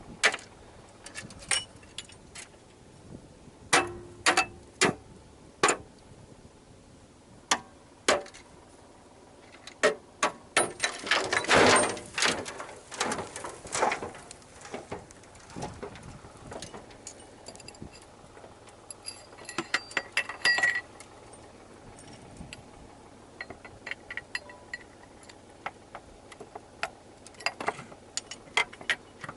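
Irregular sharp clicks, knocks and metallic clinks, with a dense cluster of them about ten to fourteen seconds in, over a faint steady background.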